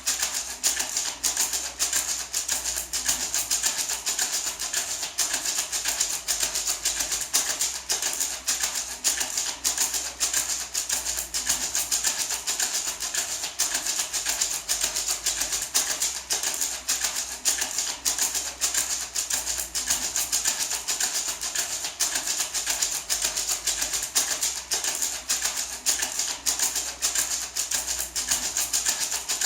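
Small gourd maraca shaken steadily in an even, continuous rhythm, its seeds rattling against the dried gourd shell.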